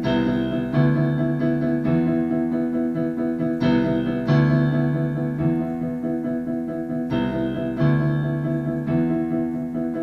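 Keyboard accompaniment playing a slow sequence of held piano-style chords, a new chord struck every second or so.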